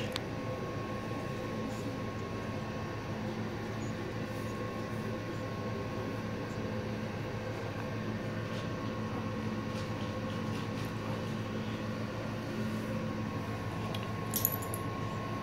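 Steady machine hum with a faint high whine, and a small click about fourteen seconds in.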